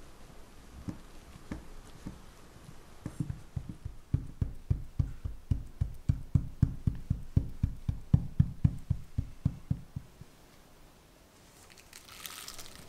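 A flat-bottomed cylindrical tamper tapping and pressing a buttered graham-cookie crumb base down into a stainless steel cake frame: a few soft knocks, then from about three seconds in a fast, even run of dull thumps, about four a second, for some seven seconds. Near the end, plastic wrap crinkles briefly.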